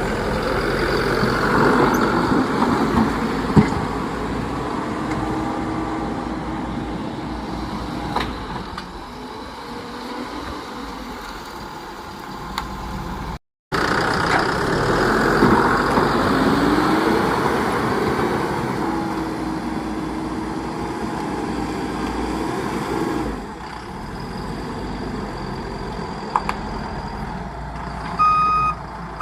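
Diesel engine of heavy earthmoving machinery working, its note rising and falling with the load, with a brief dropout about halfway through. Near the end a reversing alarm beeps twice.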